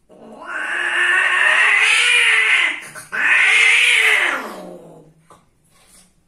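Female cat's copulatory cry as the mating ends: two long, loud yowls, each rising and then falling in pitch, with a short break about three seconds in.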